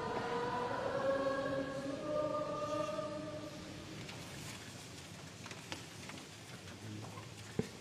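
A choir sings the short response to the end of the reading: a few held notes and a rising glide over about three and a half seconds. Then comes the quiet of a large church, with faint rustles and one sharp knock near the end.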